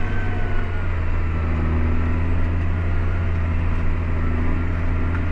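John Deere 8300 tractor's six-cylinder diesel running steadily under load, pulling an implement across the field in the power shift's upper gears: a constant low drone with no change in pitch.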